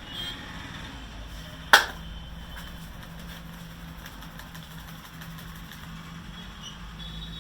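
Steady low hum of a running engine, with one sharp, loud smack about two seconds in.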